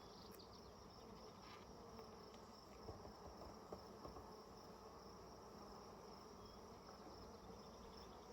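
Faint steady buzzing of agitated honeybees around an open hive, with a few light clicks about three to four seconds in.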